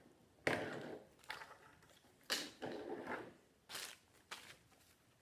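Plastic toys and crinkly wrapping being handled: about six short rustling, crinkling bursts.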